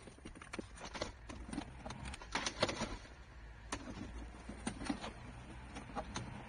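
Irregular clicks and taps of a dash cam power cable and plastic dashboard trim being handled as the cable is tucked in, over a low steady hum.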